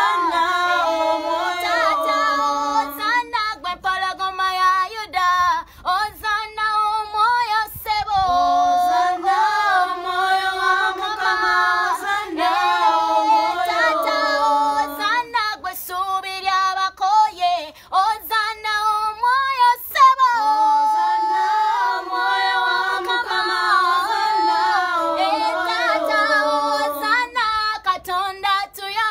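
Children's choir singing a worship song a cappella, girls' voices holding long notes with short breaths between phrases.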